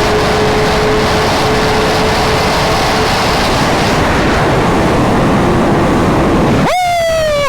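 Steady rush of wind and engine noise from a moving superbike. Near the end, a loud high-pitched tone sets in and falls slightly in pitch.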